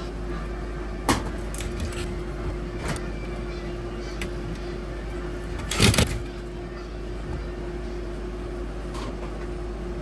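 Light clicks and taps of a screwdriver and hand tools working the wiring terminals of a duct smoke detector on sheet-metal ductwork, with a sharp click about a second in and a louder brief clatter just before six seconds. A steady mechanical hum runs underneath.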